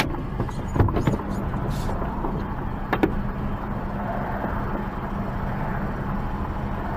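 Lorry cab with the engine idling steadily while the lorry stands still, a low hum, with a few sharp clicks and knocks in the first few seconds.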